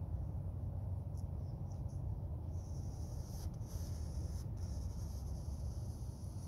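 Paintbrush stroking oil paint across a canvas, a soft scratchy rasp that starts about two and a half seconds in, with a few brief ticks, over a steady low rumble.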